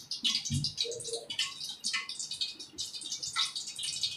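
Hands kneading and squeezing a wet dough of soaked sabudana (tapioca pearls) and mashed potato in a steel bowl, making an irregular patter of small, soft, wet clicks.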